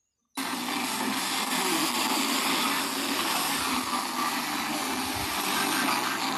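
FM radio receiver putting out loud, even static hiss on a weak or empty frequency, with faint traces of a programme underneath. It switches on abruptly and cuts off just as abruptly.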